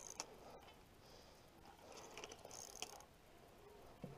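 Faint ratcheting clicks in short bursts from a spinning fishing reel under load from a hooked fish on the line.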